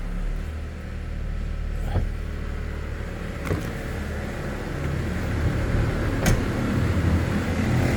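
Honda HR-V 1.8 engine idling cold with the transmission in gear: a steady low hum that slowly gets louder, with a vibration noise that is there only in gear and stops when shifted out. The mechanic later traced the noise to the accessory-belt tensioner. A few light clicks sound over it.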